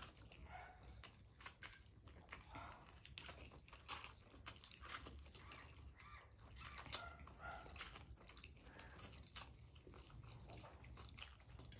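A person chewing and eating food, faint, with short irregular clicks of mouth and food sounds scattered throughout.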